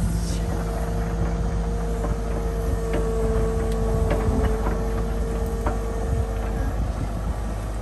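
Cat 308 compact excavator's diesel engine running steadily, with a steady high whine that stops about a second before the end and a few light clicks.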